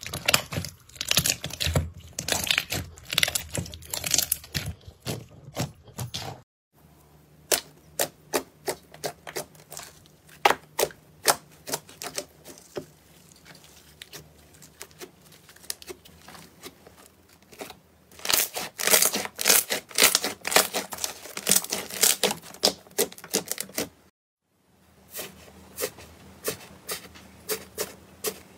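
Hands squeezing, stretching and pressing slime, giving a dense run of sharp pops and crackles. The sound cuts out briefly about six seconds in and again near the end, then goes on as lighter crackling from a crunchy green slime pressed with the fingertips.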